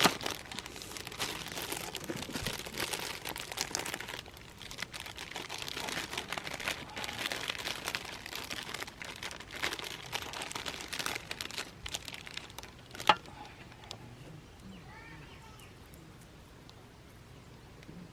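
Irregular rustling and crinkling of material being handled, with one sharp click about thirteen seconds in, after which it goes quieter.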